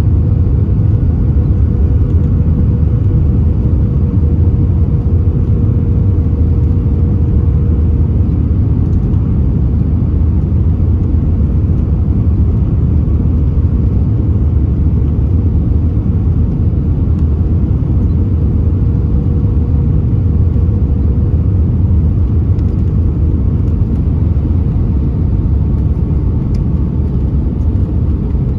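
Steady low rumble of engine and airflow noise inside the cabin of an Airbus A320-232 airliner, heard from a window seat, with a faint steady hum above it.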